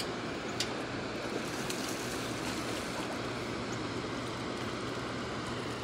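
Steady rush of flowing creek water, with a couple of faint clicks near the start.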